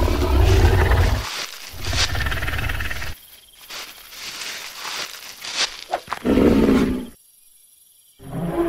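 Creature roars and growls used as film sound effects: two long, deep roars in the first three seconds, then quieter sounds, another shorter growl about six seconds in, and a brief quiet spell near the end.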